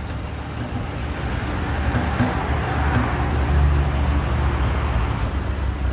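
Caterpillar 320D tracked excavator's diesel engine running under load as the machine works in mud, a steady low hum that swells about halfway through.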